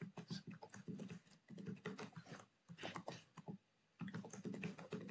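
Computer keyboard typing: quick runs of keystrokes in several short bursts with brief pauses between them.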